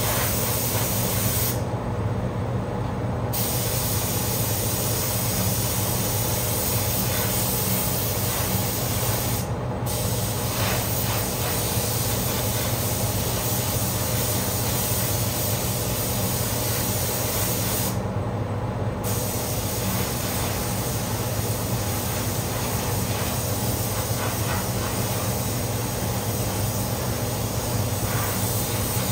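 Air spray gun hissing as it sprays paint, with a few brief pauses about 2 seconds in, near 10 seconds and around 18 seconds, over the steady hum of the paint booth's ventilation fans.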